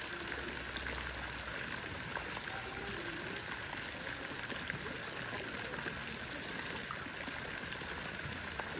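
Steady, even rush of water at a swimming pool, with no speech over it.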